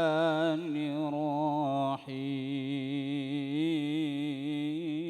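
A male reciter's voice in melodic Quran recitation (tilawah), holding long ornamented notes with a wavering vibrato; the voice breaks off briefly about two seconds in and then takes up another long held note.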